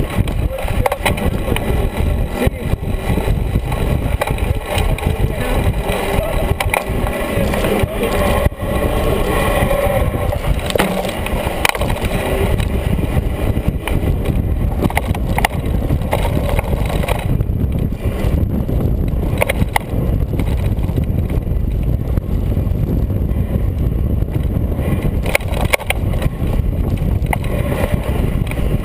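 Fat-tyre mountain bike riding fast down a rough dirt trail, heard through a bike-mounted camera: a steady rolling rumble of tyres on dirt and rock, with frequent knocks and clatter from the bumps.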